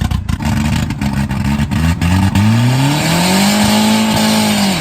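Turbocharged Nissan SR20 four-cylinder revving hard. It goes in choppy, uneven blips at first, then climbs smoothly to a high rev held for over a second, and the revs fall away near the end.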